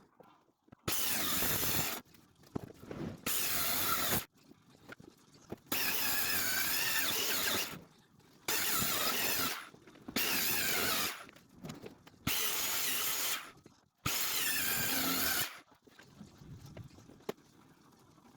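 Power drill running in about seven short bursts of one to two seconds each, with a wavering whine during each run and brief pauses between them.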